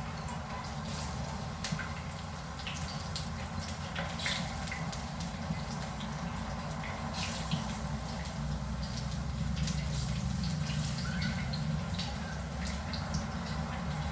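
Sliced plantains shallow-frying in hot cooking oil in a pan: a steady sizzle with scattered crackles and pops, over a low hum.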